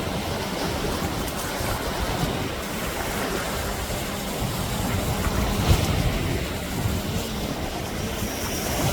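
Sea waves breaking and washing on a beach: a steady wash of surf that swells in a stronger surge about six seconds in, with wind rumbling on the microphone.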